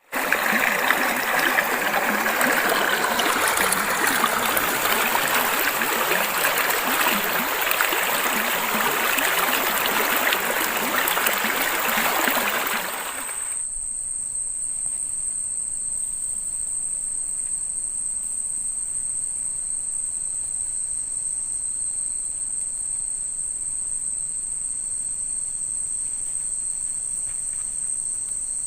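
A stream rushing steadily for about the first half. It cuts off abruptly to insects trilling on one steady high note, with a fainter second note below it.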